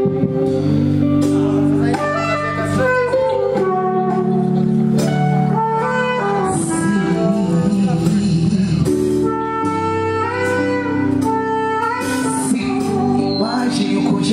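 Music over the sound-check PA: a melodic track with long held notes and a wavering held note about halfway through.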